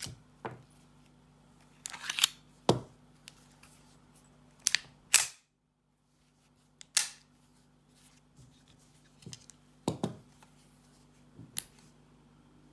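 Sharp metallic clicks and clacks of a Husqvarna M/40 9 mm pistol's steel parts being handled and worked during disassembly: about ten separate knocks scattered irregularly, some in quick pairs.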